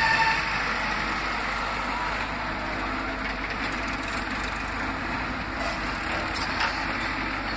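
L&T-Komatsu PC71 mini excavator's diesel engine running steadily as the machine swings round and works its boom.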